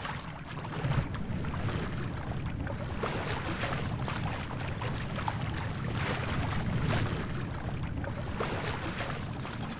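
Sailboat's engine running steadily while motoring across a bay, a low even drone, with wind and water noise over it.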